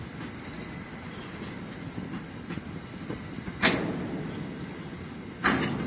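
Freight train of covered hopper wagons rolling past: a steady rumble of steel wheels on rail, with two loud wheel clacks in the second half, almost two seconds apart, and fainter clicks between.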